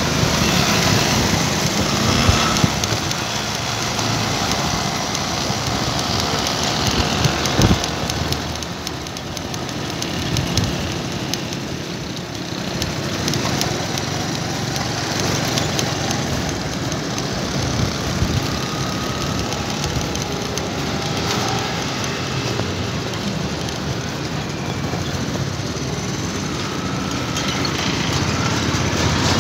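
Steady engine and road noise heard from on board a moving vehicle, with a constant rushing noise over the microphone.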